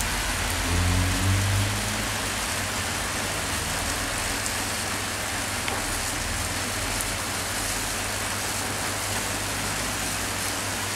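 Steady hiss of rain with a low, even hum under it and a few faint crackles, around a high-voltage transmission tower whose insulators are failing in the rain and could short-circuit. A brief louder low rumble passes about a second in.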